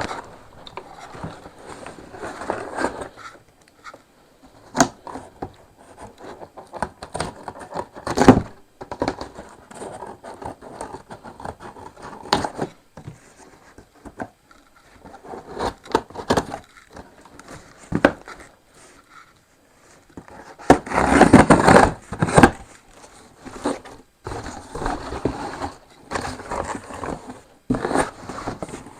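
Parcel packaging being handled and opened: irregular scraping, crinkling and tearing with scattered clicks and knocks, and a louder stretch of rustling about three quarters of the way through.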